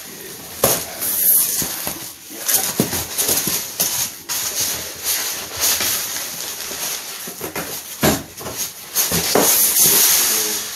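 Plastic packaging wrap crinkling and rustling as it is pulled off a flat-pack wooden bed panel, with a few sharp knocks as the panel is handled.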